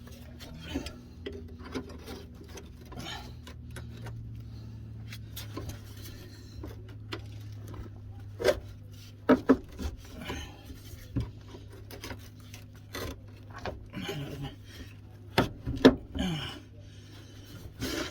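Hand tools scraping, rubbing and clinking on a badly corroded front suspension drop link. Sharper metal knocks come in the second half, over a steady low hum.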